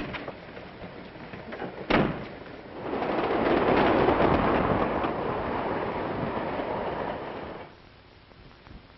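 A compartment door shuts with a single bang, then the rush of a moving train swells up, runs for about five seconds and cuts off suddenly, leaving only the old soundtrack's hiss.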